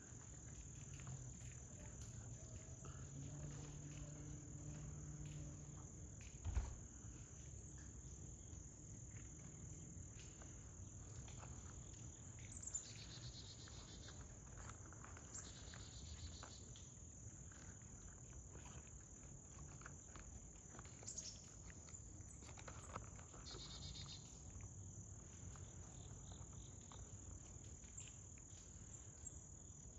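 Faint, steady high-pitched insect trilling, typical of crickets, with three short bursts of chirping partway through. A single knock sounds about six seconds in.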